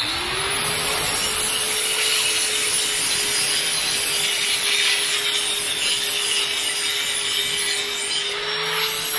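Handheld angle grinder coming up to speed at the start, then running steadily with its abrasive disc pressed against the steel edge of a lawn mower blade: a steady motor whine under a loud grinding hiss as the dull, rounded edge is sharpened.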